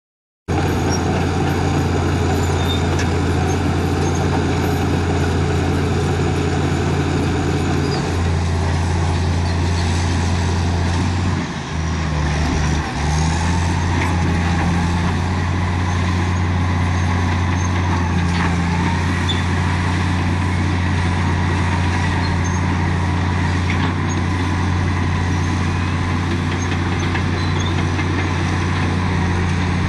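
Caterpillar D7G bulldozer's Cat 3306 six-cylinder diesel engine running steadily with a deep drone. Engine speed dips briefly about twelve seconds in, then picks back up.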